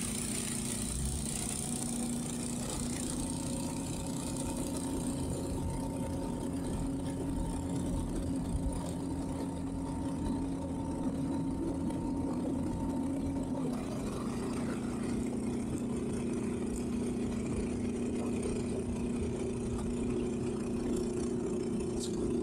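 Towboat's engines running at low speed while it manoeuvres a boat in a side tow; a steady engine hum whose note shifts about thirteen seconds in, as the throttle changes.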